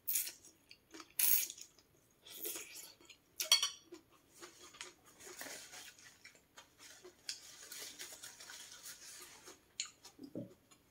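Hot noodles slurped from chopsticks in several short, loud bursts, followed by a longer, softer rustling and sniffing as a paper tissue is pressed to the nose, and a soft low thump near the end.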